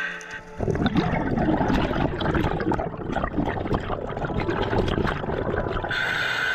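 Scuba diver breathing out through a regulator: exhaust bubbles crackling and gurgling for about six seconds, then a short hiss of breath drawn in through the regulator near the end.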